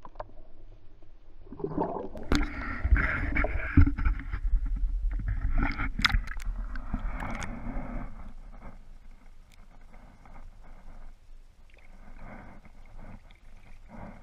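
Water sloshing and gurgling against a submerged camera housing, muffled and low, with a few sharp clicks and knocks. It is busiest in the first half and quieter near the end.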